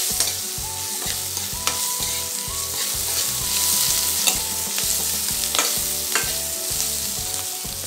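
Vegetables sizzling in hot oil in a stainless steel kadhai while a steel spoon stirs them, scraping and clinking against the pan throughout.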